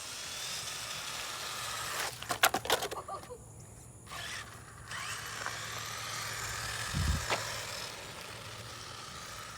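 Traxxas 1/16 Slash RC truck's electric motor whining as it drives, the pitch rising and falling with the throttle. A burst of clattering knocks about two seconds in and a dull thump about seven seconds in.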